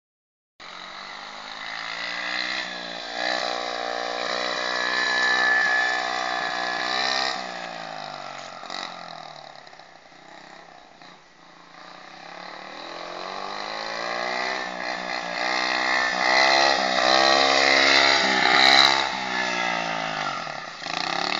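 Small 50 cc dirt bike engine revving up and down as it is ridden around a rough track, its pitch rising and falling with the throttle. It grows louder, fades to its quietest around the middle, then comes back louder again near the end.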